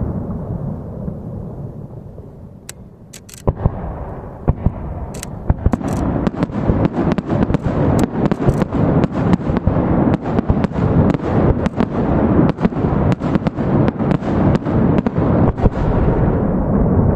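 Aerial fireworks bursting. A fading rumble gives way to a few sharp bangs about three seconds in, then from about six seconds a rapid barrage of many bangs over a continuous rumble, which eases near the end.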